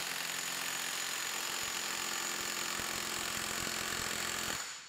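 SeeSii WH710 cordless impact wrench hammering a bolt at full power on a torque-test fixture, a steady rapid rattle that stops about four and a half seconds in.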